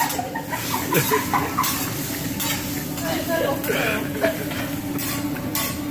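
Food sizzling on a hot teppanyaki griddle, with sharp clicks and scrapes of a metal spatula on the steel several times.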